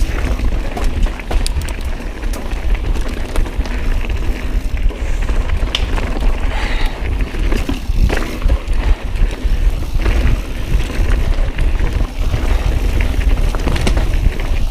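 Mountain bike riding down a rocky trail, with a heavy low rumble of wind buffeting the action-camera microphone. Tyres and frame rattle over the rocks, with scattered sharp knocks and clicks.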